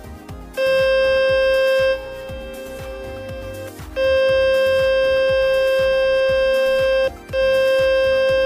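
Water-ejection tone from the Fix My Speakers website played through a phone's loudspeaker: one steady, unchanging tone. It starts about half a second in, drops quieter for about two seconds, comes back loud, and breaks off briefly about seven seconds in before resuming. The tone is meant to vibrate the speaker and blow water droplets out of it.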